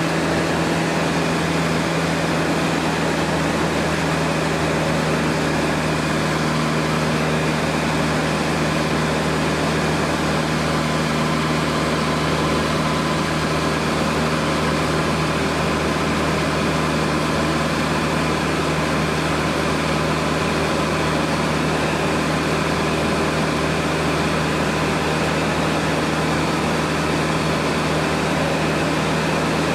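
Cessna 150's four-cylinder Continental O-200 engine and propeller running steadily in flight, heard from inside the cabin, with a steady hiss of rushing air over it.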